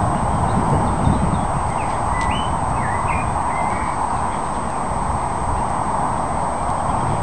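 Steady rushing of wind across the microphone, with small birds chirping in short rising and falling calls, several times about two to four seconds in.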